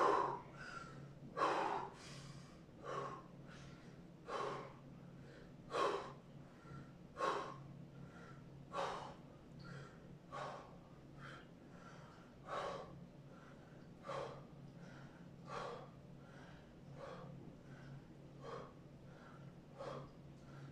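A man breathing hard in a steady rhythm while doing crunches: a forceful breath out through the mouth about every second and a half, with quieter breaths in through the nose between them, over a faint low hum.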